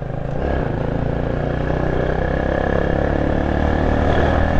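Motorcycle engine running under way, growing gradually louder as the bike picks up speed.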